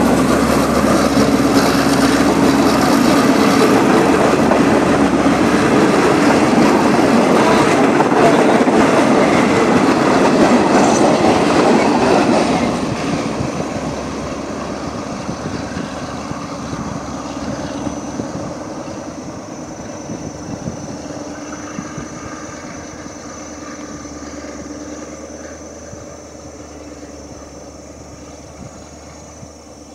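Passenger coaches of a train hauled by an Alsthom diesel-electric locomotive rolling past close by, loud and steady. About twelve seconds in the sound begins to fade as the train pulls away into the distance.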